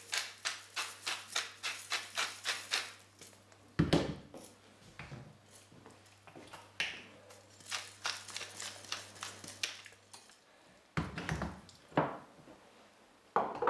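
Hand spice mill being twisted to grind salt and pepper over the pan, a regular crunching click about three times a second that stops about three seconds in. A loud knock follows about a second later, and a few more knocks come near the end, over a faint steady low hum.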